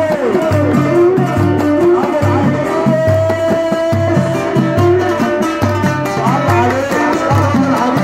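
Oud and simsimiyya playing an Egyptian folk prelude: plucked notes with bending slides and one long held note, over a steady low pulse about twice a second.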